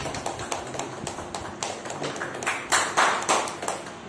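A few people clapping in scattered, uneven claps, loudest about three seconds in, then stopping.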